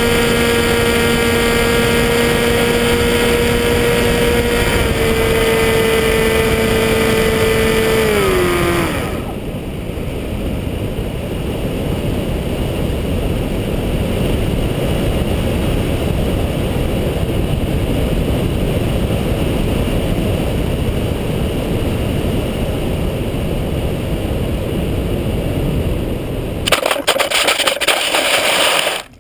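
Skywalker 1880 RC plane's electric motor and propeller whining at a steady pitch, which slides down and dies away about eight seconds in as the power comes off. Wind then rushes over the onboard camera as the plane glides, and near the end comes a brief loud scraping and clattering as it touches down on a pebble beach.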